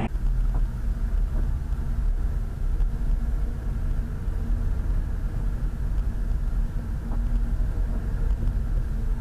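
A car on the move: steady low engine and road rumble.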